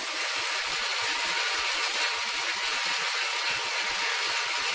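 Ellis 1800 series horizontal bandsaw running, its blade cutting dry through the thick steel wall of a compressed-gas cylinder: a steady hiss with faint irregular low knocks underneath.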